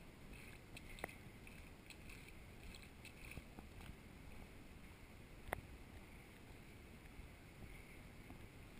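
Faint low rumble of motion and wind on a moving camera's microphone. Two sharp clicks come through, about a second in and again about halfway through.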